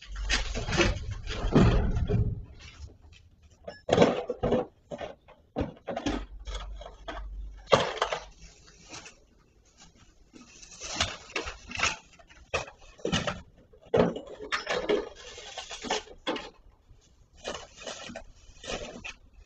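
Irregular knocks, scrapes and clatter of a man handling objects and loose brick at a hole broken through a masonry wall, with a low rumble in the first two seconds.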